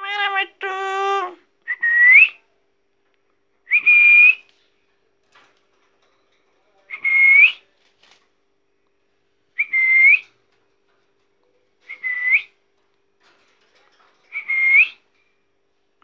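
A young parakeet whistling: a short whistle that rises at the end, repeated six times about every two to three seconds. It follows a buzzy two-part call at the start.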